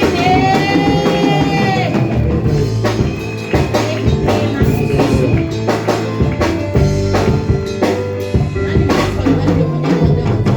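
Live church band playing a worship song: drum kit, bass and guitar keep a steady groove, with one long held note, likely sung, over roughly the first two seconds.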